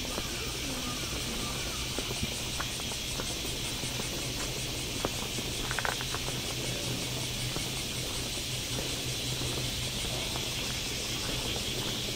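Outdoor ambience on a wooded path: insects chirping in a steady high, fast-pulsing drone over a low steady hum, with soft footsteps and a brief chirp about halfway through.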